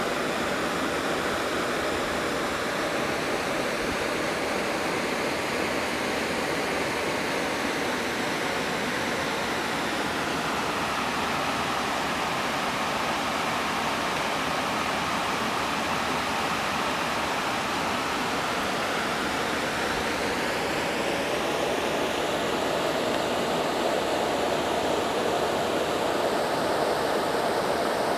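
Heavy rain falling steadily, an even hiss, with water running along a concrete storm drain. It grows a little louder near the end.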